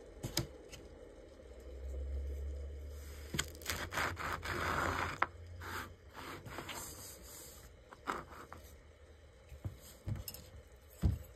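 Round scalloped plastic cutter pressed into a slab of kinetic sand and the sand around it cleared away: soft crumbling and scraping of the sand, loudest about four to five seconds in, with scattered light clicks and taps of plastic and a low thud near the end.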